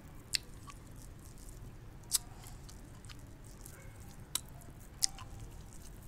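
Faint wet mouth clicks and smacks of a person licking a dalgona sugar candy, about four sharp clicks spaced unevenly over several seconds.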